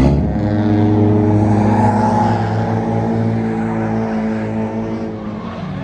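A drift car's engine running steadily, with a loud spike right at the start and the sound easing off a little toward the end.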